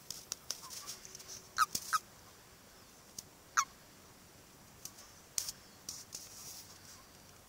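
Short croaking calls from male toads struggling in a mating ball, three brief croaks in the first four seconds, with a few faint clicks between them.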